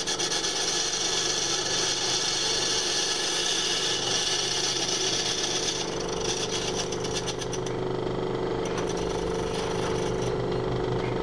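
Small metal lathe running with a steady motor hum while a single-point tool takes a cut across the face of a cast iron cylinder cover, giving a dry scraping hiss. About six seconds in the cutting noise turns patchy, coming and going in regular pulses, and it fades away near the end.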